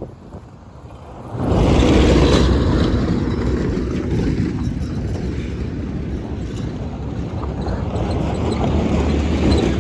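Heavy engine running loud and close, coming in suddenly about a second and a half in and going on as a steady low rumble.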